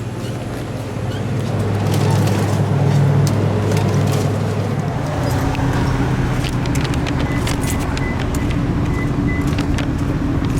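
Car running on the road: a steady low engine and road drone whose pitch shifts about halfway through.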